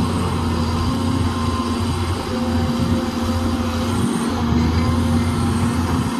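Caterpillar hydraulic excavator's diesel engine running steadily under load, a constant low hum with held tones over it, as the boom and bucket dig and dump soil.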